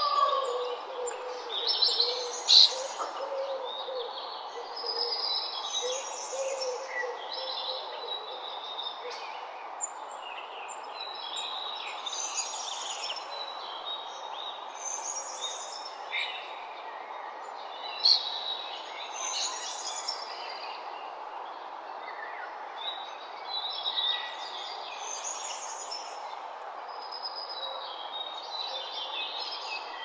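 A chorus of small birds chirping and trilling over a steady background hiss, with a couple of louder chirps standing out.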